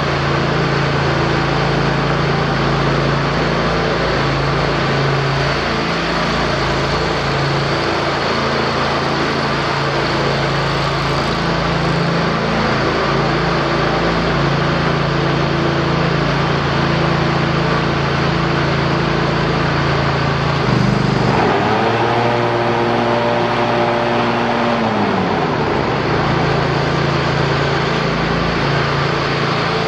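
Kohler ZT740 two-cylinder gas engine of a Kubota zero-turn mower running steadily at idle. About two-thirds of the way through it is revved up quickly, held for about four seconds, then drops back to idle.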